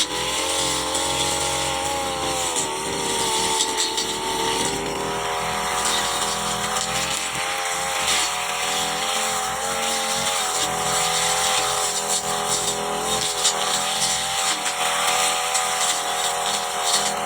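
Petrol brush cutter running at high speed, its engine note holding mostly steady with small dips in pitch.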